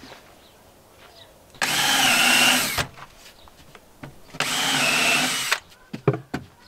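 Cordless drill driving screws into plywood in two short runs of about a second each, its motor whine rising in pitch and dipping near the end of each run.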